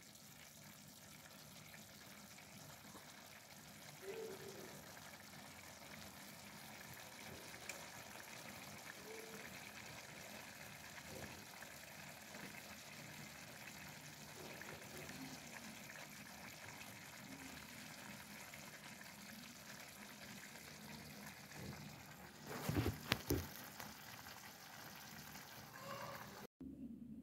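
Chicken adobo with potatoes simmering in a stainless steel frying pan, a faint, steady bubbling. A few seconds before the end, a short cluster of louder knocks.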